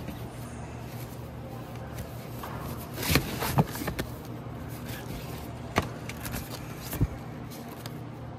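Cardboard LP record jackets being flipped through in a crate, sliding and knocking against one another, with a rustling run and two sharp taps about three seconds in and single taps near six and seven seconds. A steady low hum runs underneath.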